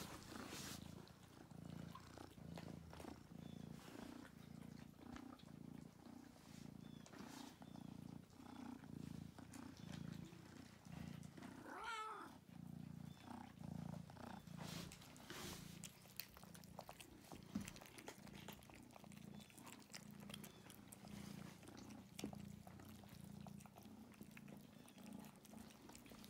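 A kitten purring close to the microphone, a soft low purr that pulses about twice a second with its breathing.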